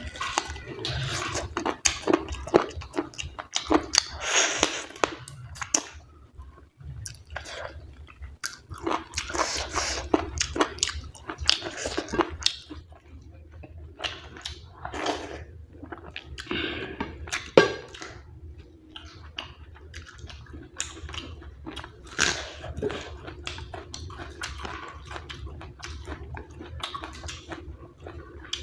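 Close-miked chewing and mouth sounds of a person eating a meal of dhido and chicken curry: irregular wet smacks and small crunches.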